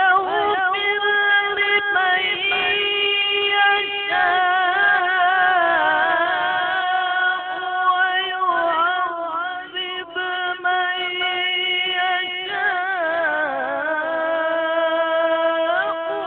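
Male Quran reciter (qori) chanting a long, high-pitched melismatic phrase of tilawah, the voice held on sustained notes with wavering ornamentation and only brief breaths between phrases. It enters suddenly at full strength after a silence.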